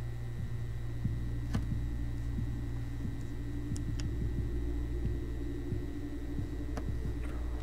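Steady low electrical hum with scattered small taps and clicks, a few of them sharper, from a microphone being handled and positioned.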